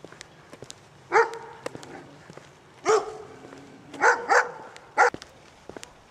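A dog barking in the background, five short barks spread over about four seconds, with faint footsteps underneath.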